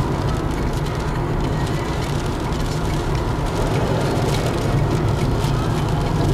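Steady road and engine noise inside the cabin of a moving car, a low even rumble with tyre hiss above it.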